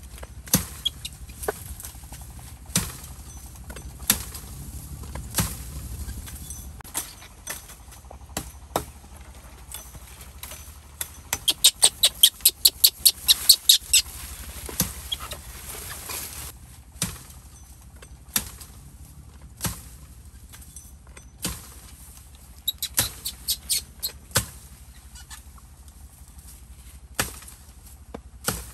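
Bamboo being chopped with a blade: sharp single strokes about once a second, with a quick run of about a dozen rapid strokes near the middle and another short cluster later on.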